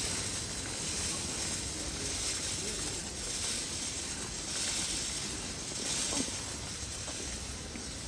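Open-air street market ambience: a steady hiss of background noise with no clear voices or sharp sounds standing out.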